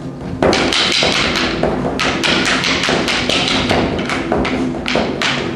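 Rattan escrima sticks clacking together in a fast, irregular series of sharp strikes, about three a second, beginning about half a second in, over steady background music.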